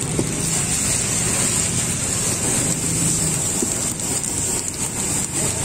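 Egg batter sizzling in a hot griddle pan with round wells: a steady hiss over a low, even rumble.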